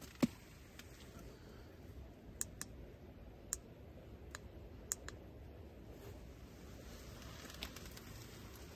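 Wood campfire crackling: scattered sharp pops and ticks at irregular intervals over a faint steady rush, with one louder knock just after the start.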